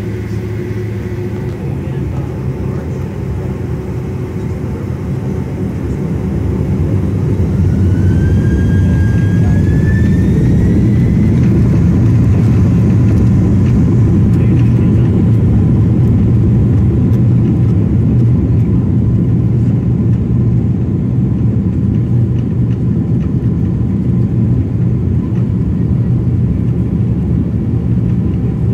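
Boeing 767 jet engines heard from inside the cabin: a steady low rumble that swells about six to eight seconds in as thrust comes up, with a whine rising in pitch soon after, then holds loud, as at the start of the takeoff roll.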